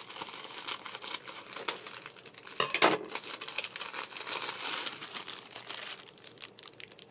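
Clear plastic packaging bag crinkling and crackling as it is handled and pulled open, with a louder crackle a little under three seconds in; the crinkling thins out near the end.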